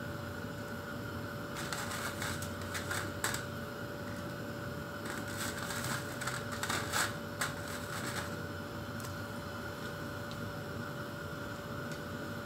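Vegetable strips frying in oil in a small pot on a gas burner, crackling in two bursts of quick clicks a couple of seconds apart over a steady hum.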